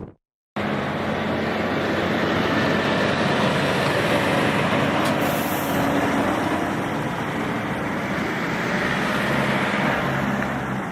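A motor running steadily with a low hum, cutting in after a brief silence at the start.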